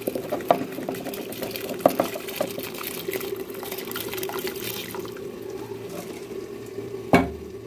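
Rice being poured into boiling water in an aluminium pot: grains splashing and pattering into the bubbling liquid for about five seconds, over a steady low hum. A single sharp knock comes about seven seconds in.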